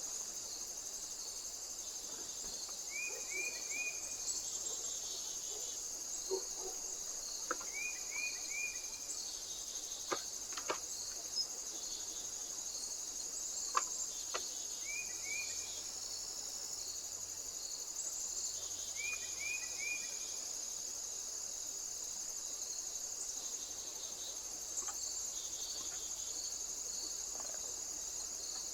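Steady high-pitched insect chorus trilling without a break. A short three-note chirp repeats every four to five seconds, and a handful of sharp clicks come around the middle.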